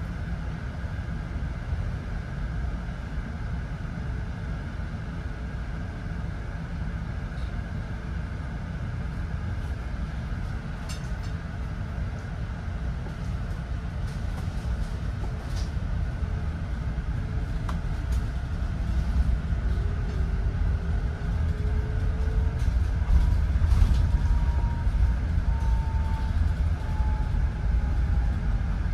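Electric city bus running, heard from aboard: a steady low road rumble, with a faint whine gliding up and down in pitch over the last ten seconds as the bus changes speed, and a few light clicks and rattles around the middle.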